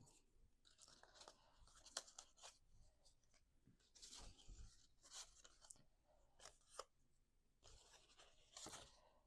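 Faint rustling and light taps of cardstock pieces being handled.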